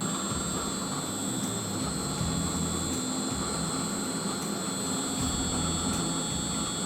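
Electric nut butter grinding machine running steadily under load, grinding a mix of nuts into paste, with an even grinding noise and a high steady motor whine.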